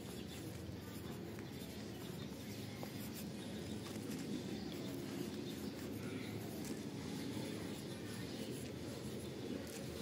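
Pencil writing on lined paper, faint, over a steady low background noise.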